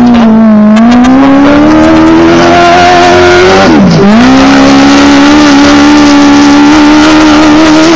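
Desert off-road race car's engine running hard at high revs, loud and close. The pitch climbs, dips sharply about four seconds in, then picks up again and holds high.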